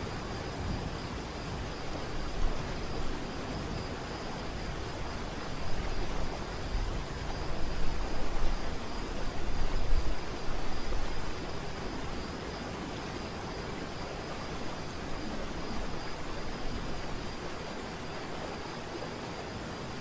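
Steady rushing roar of a large waterfall, with deeper rumbling swells about six to ten seconds in.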